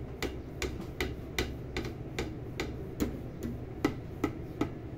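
A steady series of sharp clicks, about two and a half a second, stopping shortly before the end.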